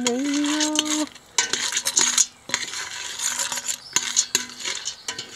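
A metal spoon stirring popcorn kernels in melted peanut butter and oil in a stainless steel pot, with irregular scrapes and clinks against the pot over a faint sizzle.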